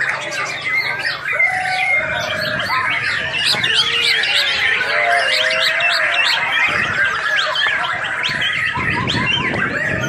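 White-rumped shama singing a rapid, varied song of sharp chirps, trills and lower warbled whistles.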